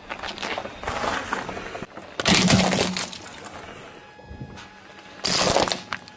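A car tyre rolling over a toothpaste tube and hard plastic toys on asphalt, crushing them. A crackling crunch comes first, then two loud cracking breaks about three seconds apart as the plastic shatters.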